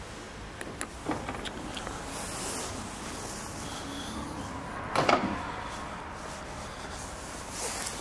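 Audi Q5's powered tailgate closing at the press of its button. A few clicks come early, then the tailgate motor runs as the lid lowers. The loudest sound is a short knock about five seconds in, as the tailgate latches shut.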